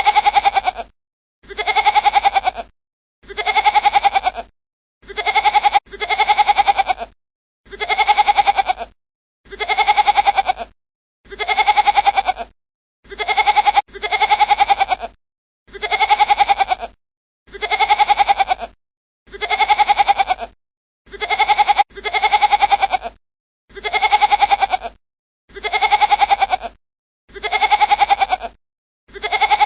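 A goat bleating, the same wavering bleat repeated at even intervals of about two seconds, each call lasting about a second.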